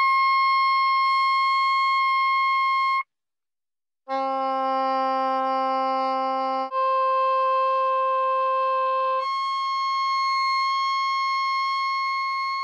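Soprano saxophone holding top C, the top of its range, for about three seconds and stopping. After a second's gap it plays three held notes in turn: middle C, the C an octave higher, then top C again, the pitch doubling at each step.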